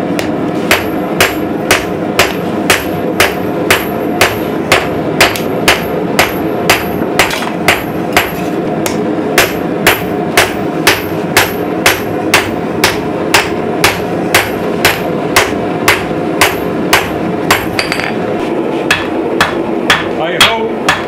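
Hand hammer blows on red-hot steel against an anvil while forging a dagger blade and tang, falling steadily at about two a second over a steady background rush.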